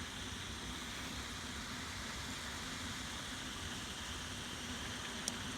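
Steady rain, an even hiss with a faint steady hum beneath it.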